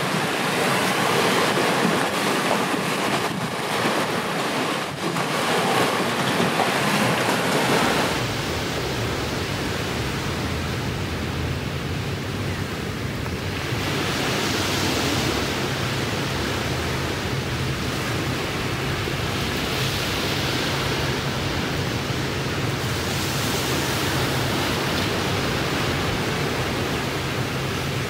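Ocean surf and wind, a steady hiss. About eight seconds in the sound changes: a low rumble comes in, and the waves swell and wash in every five or six seconds.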